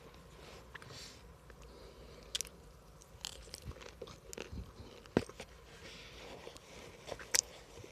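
A person biting and chewing hard, dry baked cornstarch chunks: irregular sharp crunches, loudest about five seconds in and again near the end.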